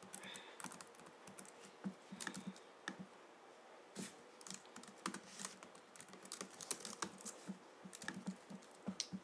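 Faint, irregular clicking of computer keyboard keys pressed in quick runs: arrow keys, delete and letter keys tapped while editing code.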